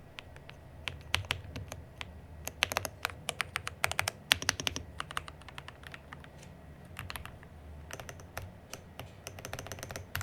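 Aula F99 Pro mechanical keyboard's keys clacking under irregular presses as keycaps are pushed back onto the switches and tried, in loose clusters of quick clicks.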